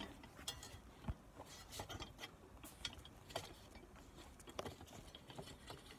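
Faint, scattered small clicks and taps of objects being handled, over low room hiss.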